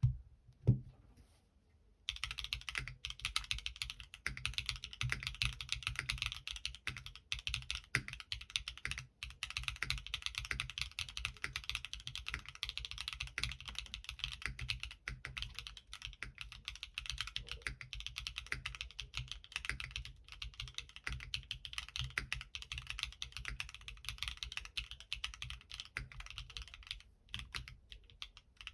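Fast, continuous typing on a gasket-mounted Molly60 v2 60% mechanical keyboard with Gateron Smoothie linear switches, an aluminium plate and XMI Classic keycaps, starting about two seconds in. A single loud thump comes about a second in, before the typing.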